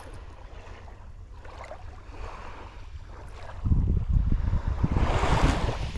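Wind gusting on the microphone, much louder from a little past halfway, over the wash of sea waves.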